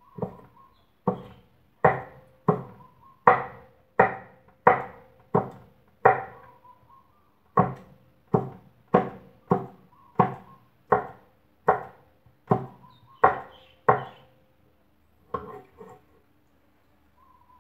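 Kitchen knife chopping vegetables on a wooden cutting board: about twenty steady chops, roughly one every 0.7 seconds, with a brief pause about six seconds in and a last pair of chops near the end.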